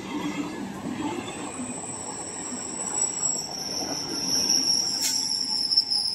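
Howrah–Katwa EMU local train passing at speed: a steady rumble of wheels on rail, joined about two seconds in by a high, steady wheel squeal. A single sharp click comes about five seconds in.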